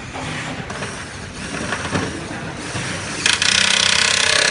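A power screwdriver runs in one burst of about a second and a half near the end, driving a screw. Before it comes lighter mechanical noise from handling the parts.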